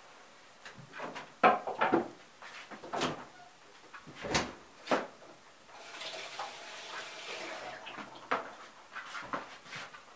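A series of household knocks and clicks, the loudest about a second and a half in, with a stretch of rustling noise about six seconds in and a few more knocks near the end.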